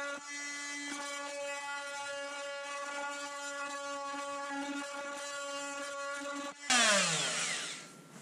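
Makita angle grinder with an old blade running steadily as it cuts a groove into the wooden bottom edge of a boat hull. Near the end it suddenly gets louder, then winds down with its pitch falling as it is switched off.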